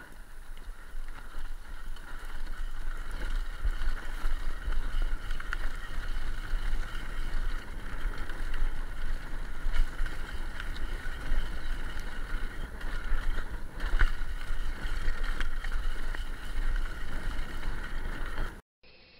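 Mountain bike riding fast down a dirt woodland trail: wind buffeting the microphone with a low rumble, over a steady rushing rattle of tyres and bike, with occasional sharp knocks from bumps. It cuts off abruptly near the end.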